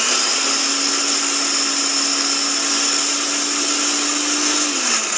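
Electric food processor running, chopping carrot, onion and zucchini into pulp: a loud, steady motor whine. Its low hum falls in pitch near the end.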